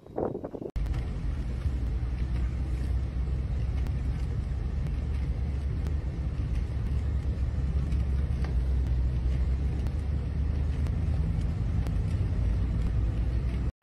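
Steady low rumble of a vehicle driving along a snow-covered road, heard from inside the cab.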